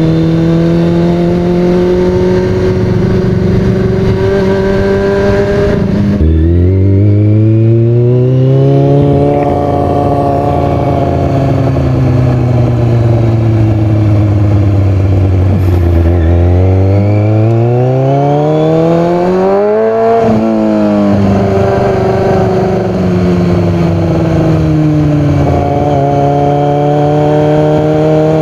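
Exhaust of a 2003 Kawasaki ZX-6R's inline-four engine through an aftermarket MotoGP-style pipe. It runs steadily at first, changes abruptly about six seconds in, then its pitch rises and falls slowly, climbs to a peak about twenty seconds in and drops back to a steady lower note.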